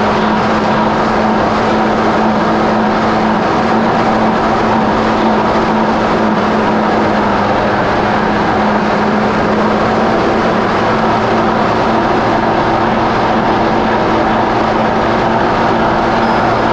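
Kawasaki SX-R 1500 stand-up jet ski's four-stroke four-cylinder engine running under way at a steady throttle, a loud constant drone that holds one pitch throughout.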